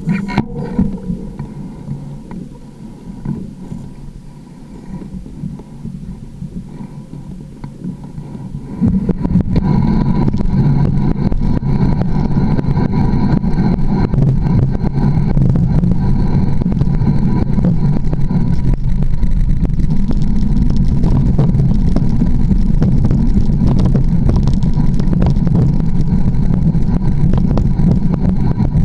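Mountain bike rolling over a rough forest singletrack, heard through a camera mounted on the bike: quiet rolling with light rattles at first, then about nine seconds in a loud steady rumble with constant small knocks and clatter from the knobby tyre and bike over the ground.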